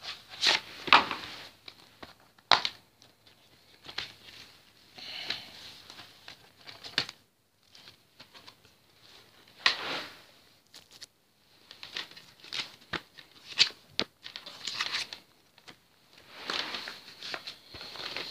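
Plastic DVD case being handled and turned over in the hands: a scattered string of sharp clicks and taps, with several short bursts of plastic rustling and crinkling.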